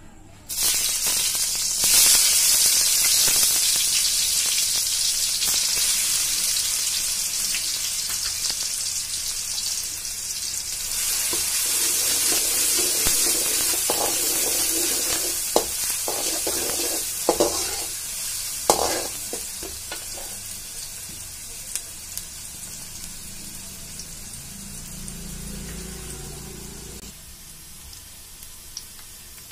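Chopped onions sizzling in hot oil in a metal kadai, stirred with a perforated steel spatula that now and then scrapes and clicks against the pan. The sizzle starts suddenly about half a second in, is strongest a couple of seconds in, and slowly dies down toward the end.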